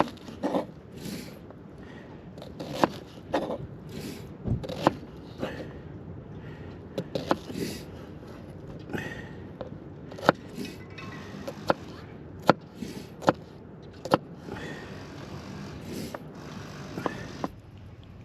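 Cooking utensils and cookware being handled: scattered sharp knocks and clicks at uneven intervals, with some scraping in between.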